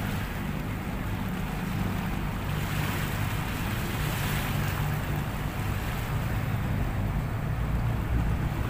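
Boat engine running steadily with a low drone, under wind on the microphone and the wash of water.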